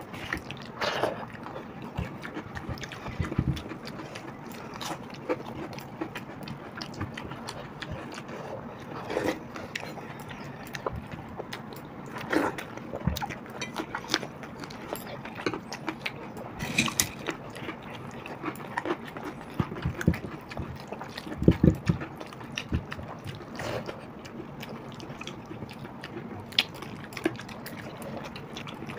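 Eating sounds of two people having watered rice by hand: wet squishing as fingers mix the rice in its water, chewing and mouth sounds, with scattered sharp clicks.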